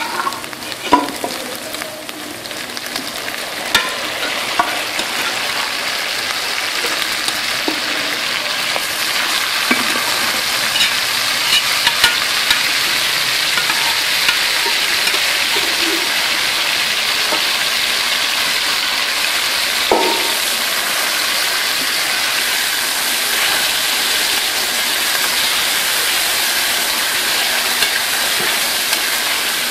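Pre-boiled mutton pieces sizzling in hot ghee with ginger-garlic paste in a steel kadhai: the sizzle grows louder a few seconds in as the meat goes into the fat, then holds steady. A few sharp knocks of a metal ladle against the pan are heard over it.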